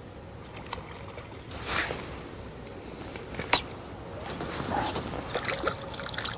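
A short fishing pole swished up to strike a bite, then a sharp click and light splashing and rustling as a small sharpbelly is drawn out of the water.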